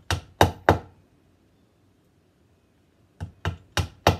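Soft-headed mallet tapping brass pachinko nails into a wooden playfield board. A quick run of taps ends under a second in, and a second run of four or five taps follows about three seconds in, driving the nail down until it bottoms out in its drilled hole.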